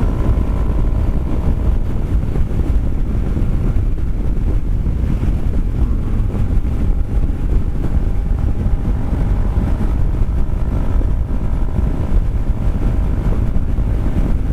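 Steady wind rush buffeting the microphone on a Kymco Xciting 400i maxi-scooter at high speed, with the scooter's engine droning faintly underneath.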